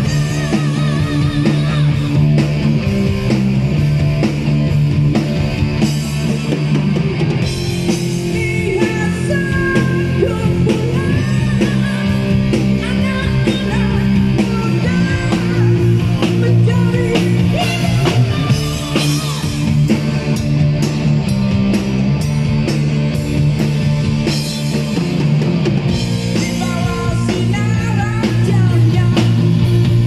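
A rock band playing live: distorted electric guitars over a drum kit, loud and continuous.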